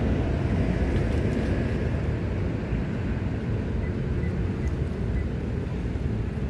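Steady low rumble with a fluttering level, and a few faint high chirps around the middle.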